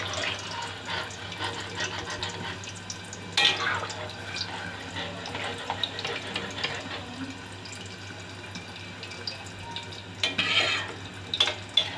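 Watery mutton curry bubbling in a metal karahi on high heat, with a metal ladle stirring it and knocking against the pan now and then, loudest about three and a half seconds in and again near the end.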